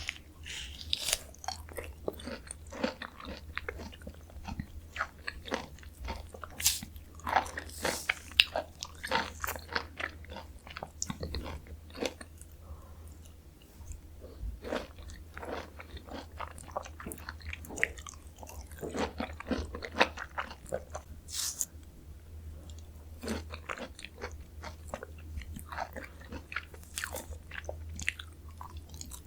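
Close-miked eating of Jeju mandarin oranges: a person bites into and chews juicy segments, with a thick run of small wet clicks and crackles. A steady low hum sits underneath.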